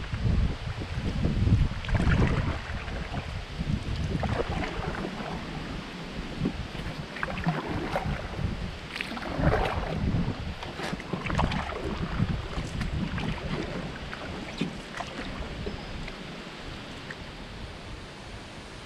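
Wind buffeting the microphone, strongest in the first few seconds, with irregular splashes and drips of a paddle working the river water.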